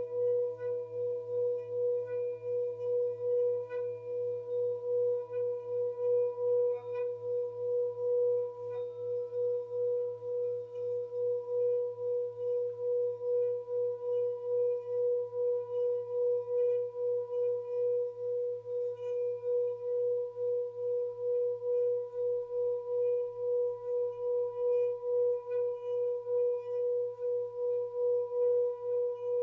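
Tibetan singing bowl (a 'Tibetan bell') sounding one sustained, unbroken tone with fainter overtones above it. Its loudness wavers in an even pulse about one and a half times a second.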